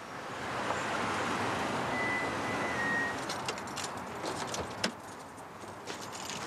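Mercedes-Benz sedan in a parking lot: a steady rush of car noise, with a brief high squeak about two seconds in. From about three seconds in come small jingling clicks and one sharp click near five seconds as the driver's door is unlatched and swung open.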